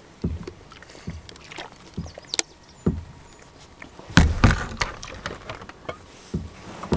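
Scattered handling knocks and clicks as a plastic water bottle is drunk from and put away in a kayak, with a louder bump and thud about four seconds in.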